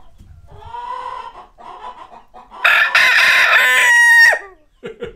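Chickens clucking softly, then a rooster crows once, loudly, for nearly two seconds from about halfway in, the call dropping in pitch as it ends.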